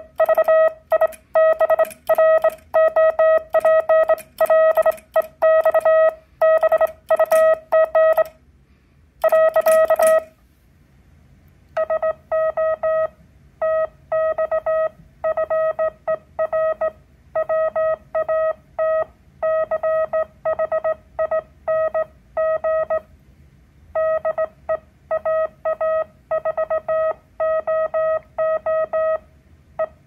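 Home-built multivibrator Morse practice oscillator, its square wave rounded by an RC filter, sounding a steady mid-pitched sidetone keyed on and off in Morse code. For the first ten seconds it is sent fast on a Vibroplex bug, with a sharp click on each element; after a short pause it is sent on a straight key, cleaner and slower.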